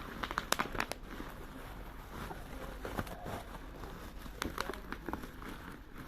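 Plastic packaging being handled, with crinkling and scattered sharp taps and clicks, a cluster of them in the first second and another about four and a half seconds in.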